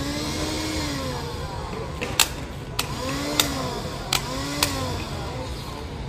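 A display handheld cordless vacuum cleaner being handled: several sharp plastic clicks from its switch and parts, and three short humming tones that rise and fall. These sit over a steady low hum.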